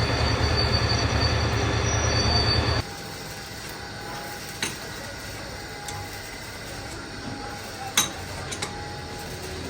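Heavy boring machine cutting steel: a loud grinding with a steady high-pitched squeal and a low hum, which cuts off abruptly about three seconds in. Quieter workshop noise follows, with a couple of sharp metallic clinks.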